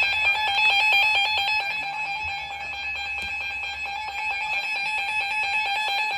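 Emergency Alert System two-tone attention signal (853 and 960 Hz), a steady, loud electronic alarm tone. It sounds without a break and announces a flood warning.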